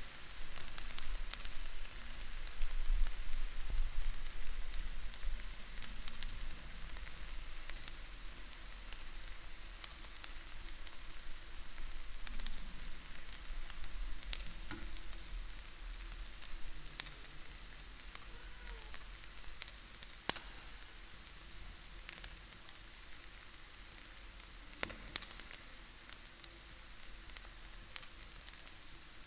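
Bacon sizzling in a pan: a steady hiss dotted with crackles and pops of spitting fat. There are a few sharper pops about two-thirds of the way in, and the sizzle grows quieter over the second half.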